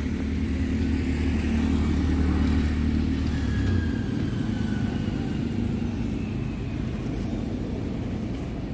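A motor vehicle's engine running nearby, a steady low hum that drops away sharply about four seconds in, leaving a fainter rumble.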